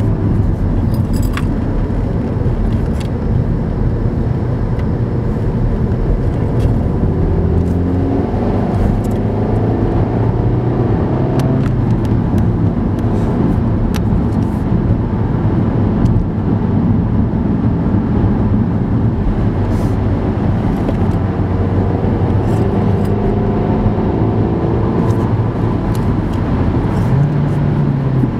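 Inside a moving Audi car: steady engine hum and tyre rumble on a wet road. The engine note rises and falls a few times as the speed changes.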